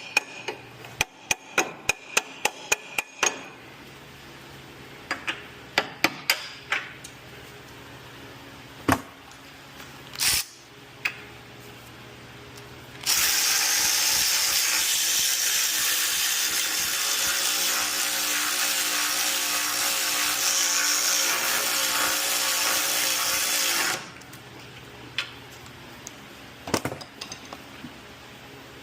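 A power tool runs steadily for about eleven seconds, starting about thirteen seconds in and cutting off suddenly. Before it come a quick run of sharp clicks and knocks, and a few more follow it: hand tools striking metal parts.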